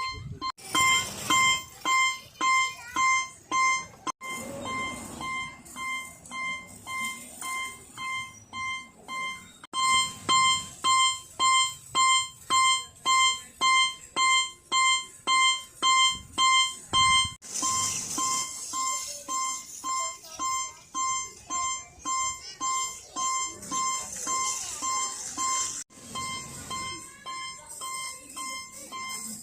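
Japanese railroad crossing warning bell ringing "kan-kan", a steady repeated tone at about two strikes a second. Its loudness jumps up and down at a few sudden breaks, loudest for the first few seconds and again in the middle stretch.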